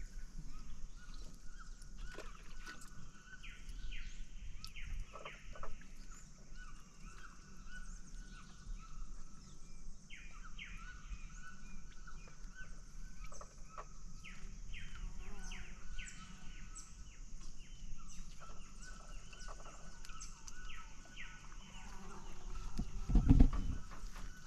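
Birds calling over and over with short falling chirps, over a steady high hiss, with a dull thump near the end.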